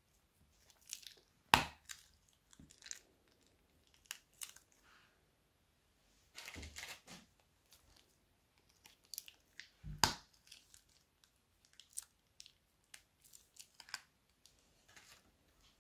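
Small plastic bags of slime crinkling and rustling in the fingers as they are handled and squeezed out, with scattered clicks and two sharp snaps, one about a second and a half in and another a little past the middle.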